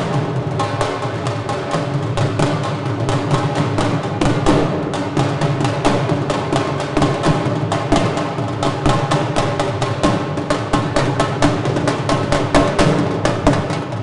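Two dhol drums played with sticks in a fast, driving rhythm: rapid, even strokes keep up without a break.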